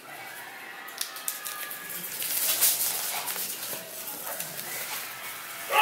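Bubble wrap being pulled and handled around a boxed drone: crinkling, rustling plastic with many small crackles and clicks, busiest from about two seconds in.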